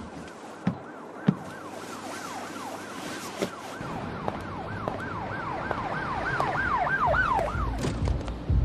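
Fast-cycling emergency-vehicle siren, each wail rising then falling about three times a second, swelling louder and then fading near the end, over a steady hiss. A couple of sharp clicks sound in the first second or so.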